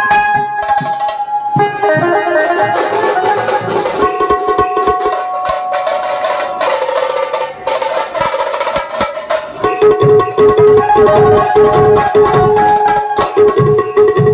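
Banjo party band playing: an amplified Indian keyed banjo carries a sustained melody over drums, and the drums come in heavier about two-thirds of the way through.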